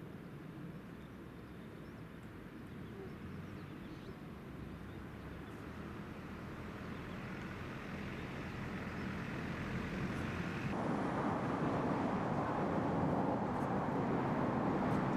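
Steady rumble of passing motor traffic, growing gradually louder over several seconds and stepping up suddenly about eleven seconds in.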